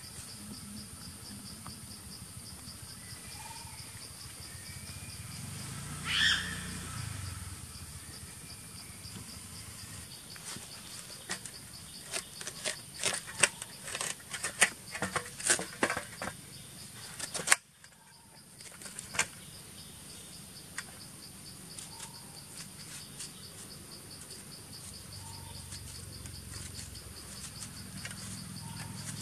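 Steady chorus of forest insects, a pulsing buzz with a high steady whine. A brief louder sound comes about six seconds in. Near the middle there is a run of sharp clicks and knocks as a watermelon is handled in a plastic tray of water.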